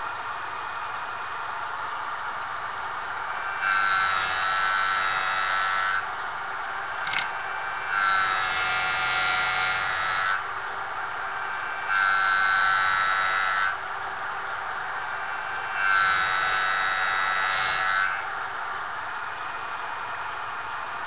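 A JoolTool power sharpening tool's electric motor running with a steady whine. It turns louder and harsher four times, for about two seconds each, and there is a single sharp click about seven seconds in.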